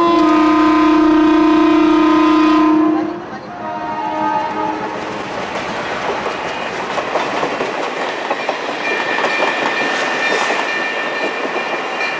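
A long-distance train's horn sounds loud and steady for about three seconds, followed by a second, shorter blast. Then comes the steady clickety-clack of the train running over the rails, with a high steady tone joining near the end.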